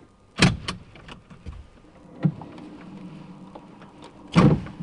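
Electric seat-belt tensioner for the front-left belt, run in an actuator test, whirring steadily for about two seconds as it draws the belt tight. A sharp knock comes about half a second in, a click just before the motor starts, and a thump near the end.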